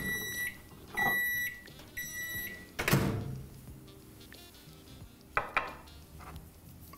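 Microwave oven beeping three times, about once a second, at the end of a heating run, followed about three seconds in by a single clunk as the door is opened, and light clicks of a glass bowl being handled.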